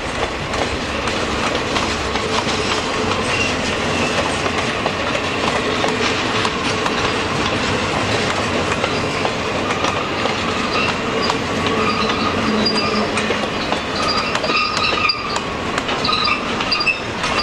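Freight cars rolling past on curved track: a steady clatter of wheels over the rails, with thin high squealing from the wheels on the curve that grows stronger in the second half.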